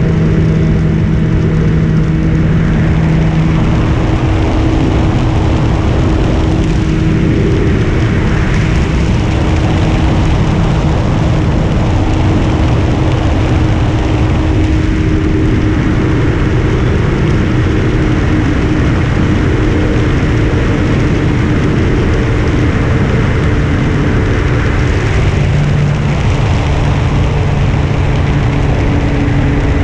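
Carbon-Z Cessna 150 RC floatplane in flight, heard from its onboard camera: the electric motor and propeller run steadily under heavy wind rush over the microphone. The motor's tone shifts slightly a few times, about four seconds in and again near the end.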